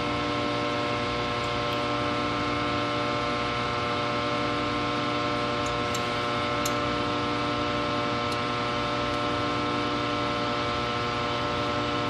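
Steady electrical hum made of several constant tones over a low hiss, with a few faint ticks.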